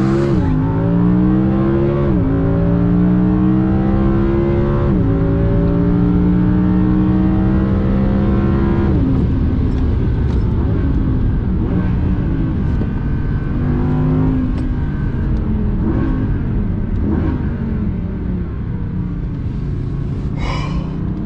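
Audi R8 Performance's V10 engine heard from inside the cabin under full-throttle launch-control acceleration. Its pitch climbs steadily, broken by two quick upshifts about two and five seconds in. After about nine seconds the climb ends and the engine keeps running at a more even, wavering pitch under tyre and wind noise.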